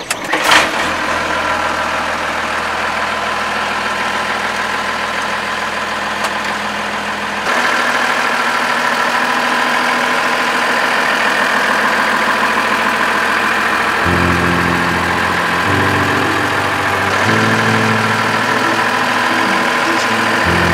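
Mercedes-Benz Unimog's diesel engine starting on the key about half a second in and settling into a steady idle.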